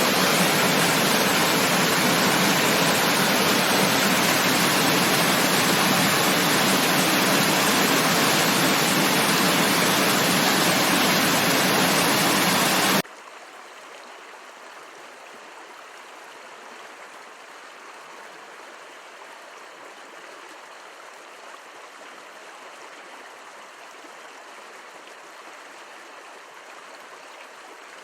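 Rushing water, loud and even for about the first half, then cutting off suddenly to a much quieter, steady flowing stream.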